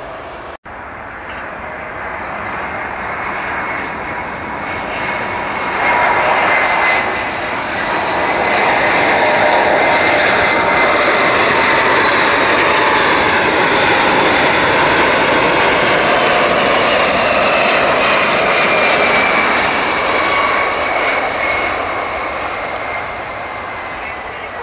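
Boeing 747-400 freighter's four jet engines on final approach to landing. The noise builds over the first several seconds, then holds loud with a whine of several tones sliding slowly down in pitch as the jet passes, and eases off near the end as it nears touchdown.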